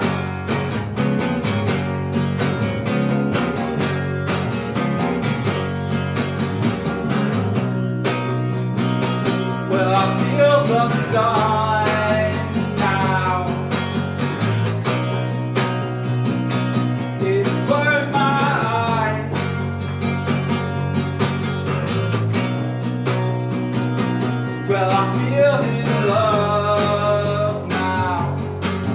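Acoustic guitar and electric bass playing a song together, with a melody line coming in three times over the steady strumming and bass.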